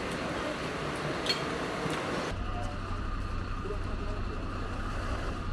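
Outdoor background of people talking. About two seconds in, the sound cuts abruptly to a steady low hum of a heavy truck engine running.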